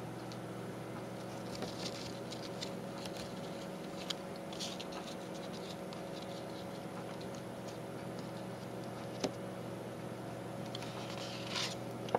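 Scissors cutting thick cardboard paint sample cards: scattered short crisp snips and crackles, bunched in two spells about a second in and near the end, over a steady low hum.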